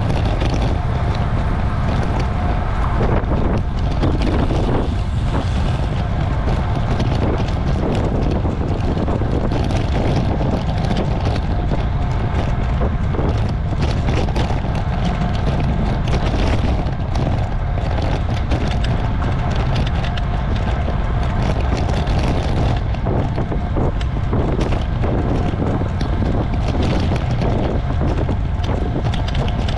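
Steady wind rushing over the microphone of a camera carried on a bicycle at racing speed: a loud, unbroken low rumble.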